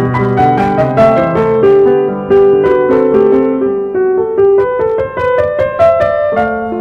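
Background piano music: a steady run of notes played one after another.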